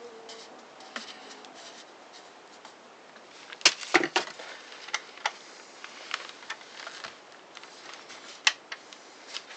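Scattered clicks and knocks of saw parts being handled and fitted during reassembly, the loudest a cluster of sharp knocks about four seconds in and another single knock near the end.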